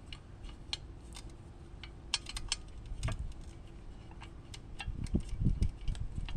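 Scattered small metal clicks and taps of a skid plate and its bolts being handled while a bolt is started into its thread, with a few soft low knocks about five seconds in.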